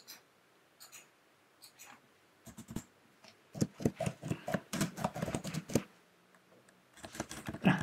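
Typing on a computer keyboard: a few separate keystrokes, then a quick run of keys about three and a half seconds in that lasts a couple of seconds.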